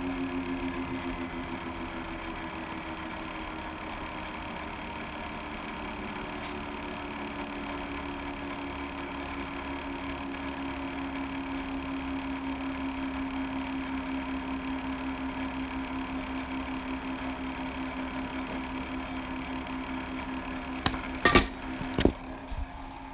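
Hot air rework station blowing steadily while components are reworked on the board: a constant whir with a slightly wavering hum. A few sharp clicks come near the end.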